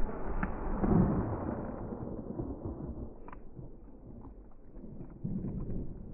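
Rolling echo of shotgun shots dying away over about two seconds, with a second swell about a second in, then faint scattered ticks.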